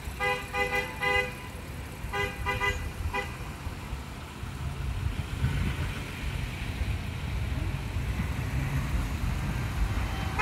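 Car horn tooting in rapid runs of short beeps, two runs in the first three seconds. Then the low rumble of cars driving slowly past, growing louder about halfway through.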